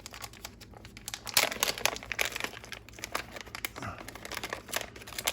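Rustling, crinkling and many small sharp clicks of hands working on small plastic and metal parts, as the stock motor is pulled out of an RC crawler.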